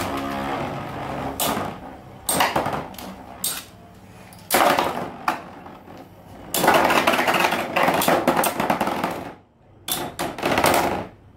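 Infinity Nado battle tops spinning and clashing: a steady whir at first, then repeated sharp knocks and rattling collisions as the tops strike each other. The longest flurry of hits comes about two-thirds of the way through.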